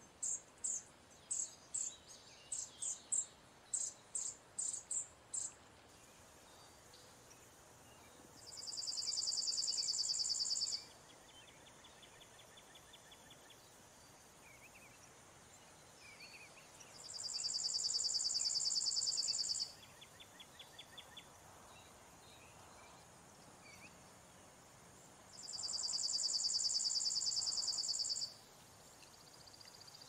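Chipping sparrow calling and singing. There is a quick run of sharp, high chip notes for the first six seconds, then three rapid, even trills of about two to three seconds each, roughly eight seconds apart.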